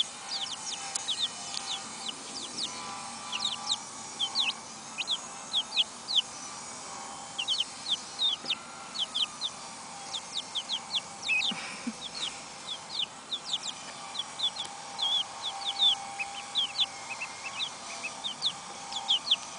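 A brood of young chicks and a duckling peeping: a constant stream of short, high, falling peeps, several a second and often overlapping.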